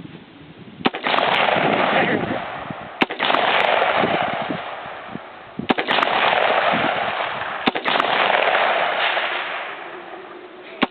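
Rock River AR-15 Operator rifle firing single aimed shots, five in all, two to three seconds apart with the last right at the end. Each crack trails off over a couple of seconds.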